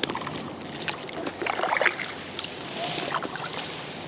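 Kayak paddle dipping and pulling through lake water, with small splashes and drips, the strokes most frequent about halfway through.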